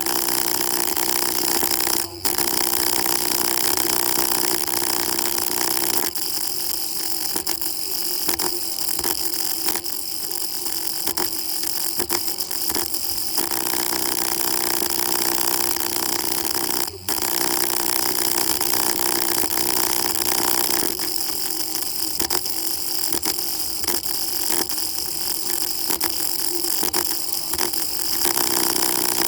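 Loud, steady machine noise with constant tones, cutting out for an instant about two seconds in and again about halfway through.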